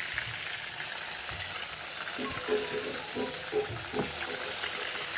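Floured chicken pieces deep-frying in hot oil: a steady sizzle.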